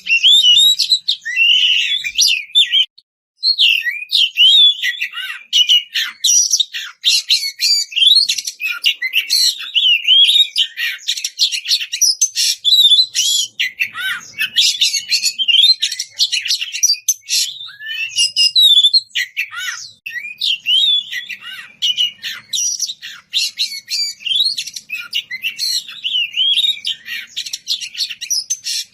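Oriental magpie-robin (kacer) singing a loud, continuous, rapidly varied song of whistles and chattering phrases, with a brief pause about three seconds in.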